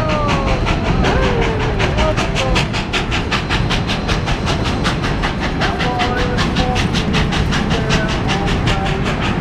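Historic steam train climbing a mountain grade, heard from a passenger car: a steady rapid beat of about four a second over the rumble of the running train.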